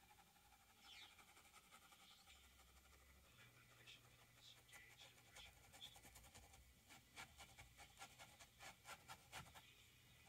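Faint scratching and dabbing of a thin paintbrush on canvas, turning into a quick run of light taps about seven seconds in.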